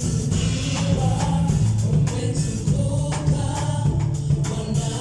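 Gospel choir singing with a band: a strong bass line, drum beat and tambourine.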